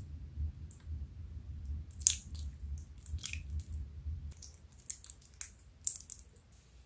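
Clear slime mixed with chunks of red lipstick being squeezed and kneaded by hand, giving irregular wet squishes and sharp little pops and crackles, the loudest about two seconds in and again near six seconds.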